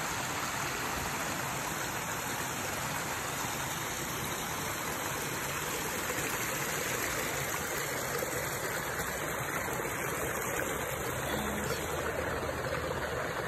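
Shallow creek running over bedrock slabs and small cascades, a steady rush of water.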